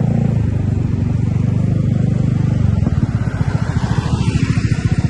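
A vehicle engine running close by: a low, steady rumble that turns into a fast, throbbing pulse about three seconds in. No telolet horn sounds.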